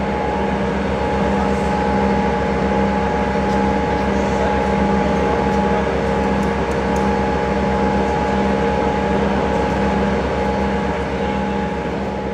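Electric machinery running steadily, a hum with a low rapid pulse and a pulsing mid tone, starting to fade near the end.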